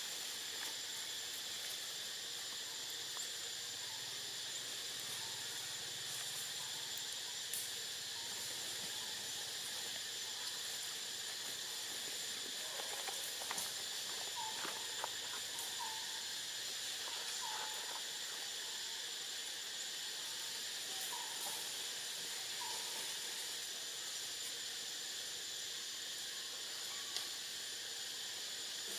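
Steady high-pitched drone of a forest insect chorus, with a thin whine held on one high note. A few short chirps come through in the middle.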